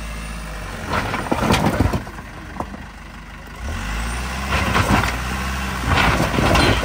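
Mahindra Bolero engine labouring under load as the SUV crawls over loose boulders, pushed harder about halfway through, with stones crunching and clattering under the tyres.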